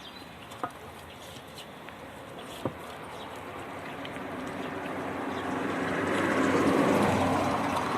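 A motor vehicle passing by, its engine and road noise rising gradually, peaking near the end and starting to fade.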